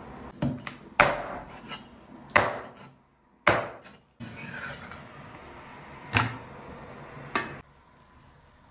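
About seven sharp, irregularly spaced strikes on a wooden chopping block, each ringing out briefly; the sound cuts out twice for a moment near the middle.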